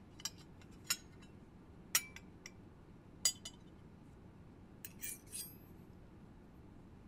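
Spoon and tableware clinking against dishes: about eight light, separate clinks spread out, several close together about five seconds in, one of them ringing briefly.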